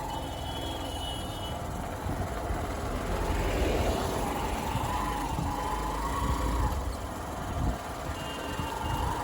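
Motorcycle engine running on the move, with an uneven low rumble of wind and road underneath and a wavering whine that rises and falls.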